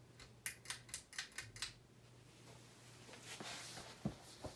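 Harbor Breeze Bellevue ceiling fan running on high speed, its small motor giving a steady low hum. A quick run of light clicks comes about half a second in, with a couple more near the end.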